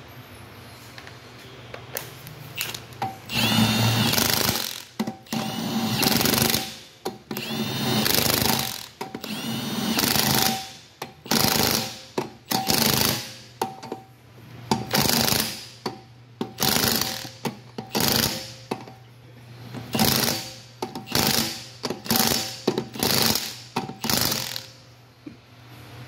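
Impact wrench run in a string of short bursts, about fifteen, running lug nuts onto the new wheel studs to tighten the remounted wheel.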